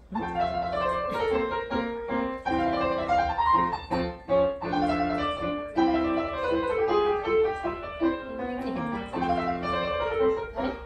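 Background piano music: a steady-paced tune of chords and running melody notes.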